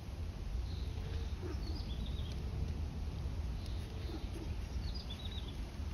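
Outdoor ambience with a steady low rumble and a few short, high bird chirps, a couple of them about two seconds in and again near the end.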